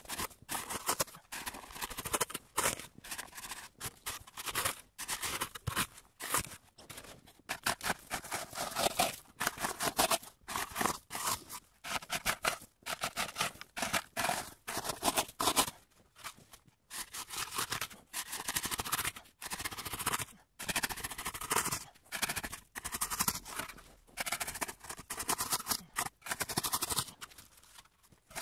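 Snow being worked in quick, repeated scraping and crunching strokes, in irregular bursts with short pauses.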